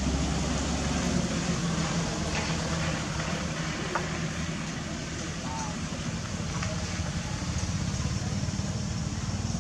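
Steady low rumble under an even hiss, with a brief faint chirp about five and a half seconds in.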